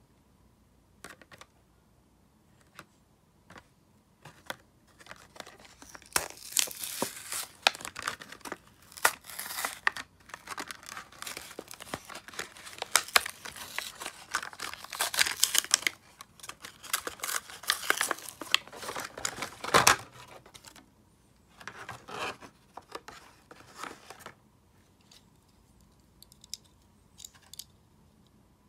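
Cardboard backing and plastic blister of a Hot Wheels card being torn open by hand: ripping and crinkling. After a few light clicks it runs for about fourteen seconds and ends in a sharp snap. A shorter burst of crinkling follows, then a few faint clicks of handling.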